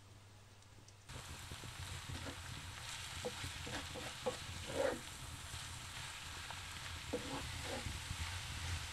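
Grated carrots and onion sizzling in oil in a cast-iron pan over a wood fire, starting about a second in. A wooden spatula stirs them, scraping the pan in short strokes.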